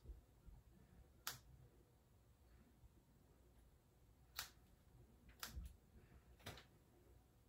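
Scissors snipping through wet hair: about five faint, sharp snips at uneven intervals, two of them in quick succession about five and a half seconds in.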